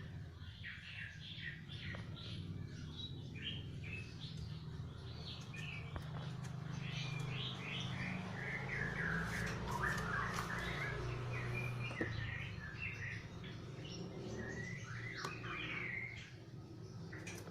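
Faulty electric fan running: a steady low motor hum under irregular, bird-like high squeaks and chirps. The fan is no longer working normally.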